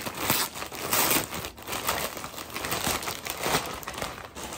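Thin clear plastic garment bag crinkling and rustling in a run of irregular crackles as a puffer jacket is pulled out of it.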